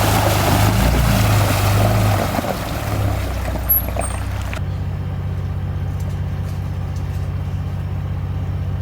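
Ford Raptor pickup driving through a shallow creek crossing: water rushing and splashing under a low engine drone, then about halfway through the splashing stops abruptly and only the engine is left running steadily.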